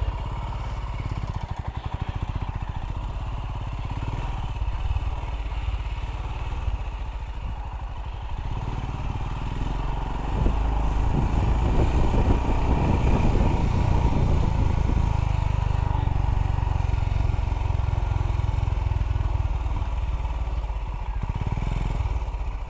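Royal Enfield Himalayan single-cylinder motorcycle engine running at low revs as the bike rides slowly, a steady low beat of firing pulses. It gets louder for a few seconds about ten seconds in.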